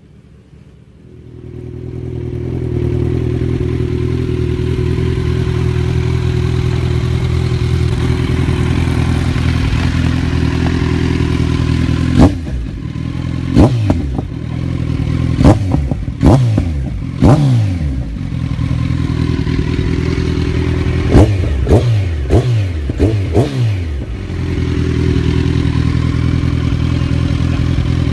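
Kawasaki Z1000's inline-four engine idling through its exhaust. It is blipped into short, sharp revs: a few spaced ones about halfway through, then a quicker run of blips, before it settles back to a steady idle.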